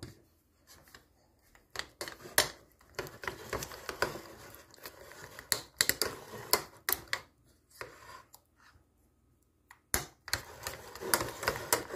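Metal spoon stirring a thick, wet mixture of cottage cheese and chocolate pudding in a ceramic bowl, clinking and scraping against the bowl in irregular taps, with a short lull before a sharp clink near the end.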